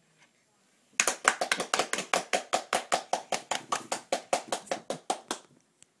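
One person clapping rapidly, about six claps a second, starting about a second in and lasting about four seconds.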